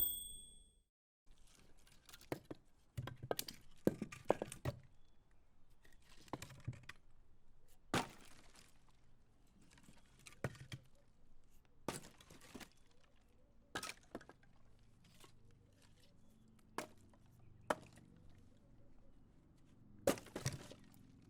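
A typewriter's line-end bell dings once at the very start. After that, an old manual typewriter's keys strike slowly and irregularly, single clacks a second or two apart, with a few quicker runs.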